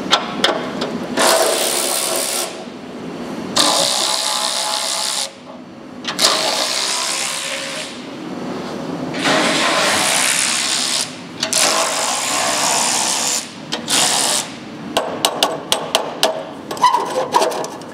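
Power ratchet undoing the exhaust clamp nuts on a Porsche Boxster's U-pipe, run in about six bursts of one to two seconds each, then a string of short quick bursts in the last few seconds as a nut comes free.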